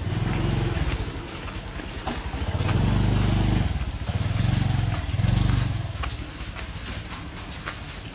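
Motorcycle engine running close by, swelling louder and softer several times, loudest from about two and a half to nearly six seconds in, then dropping away.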